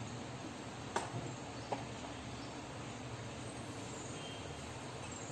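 Faint steady hiss of a gas burner heating oil in a cast-iron kadai, with two light clicks about one and two seconds in.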